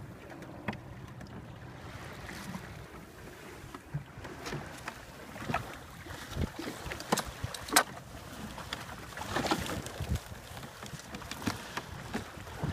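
Water rushing and splashing along the hull of a small wooden open sailboat running under sail, with wind on the microphone and scattered sharp knocks and splashes at irregular moments, the loudest about eight seconds in.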